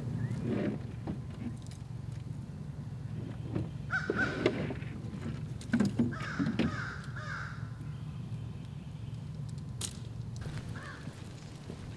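Crows cawing: a short run of harsh caws about four seconds in, another about six to seven seconds in, and a single caw near the end, over a steady low hum with a few scattered knocks.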